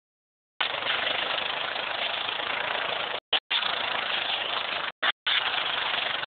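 Quad (ATV) engine running as the machine drives along, a steady rough noise. The sound is absent for the first half second, then cuts out completely twice more for a moment, once past the middle and again about five seconds in.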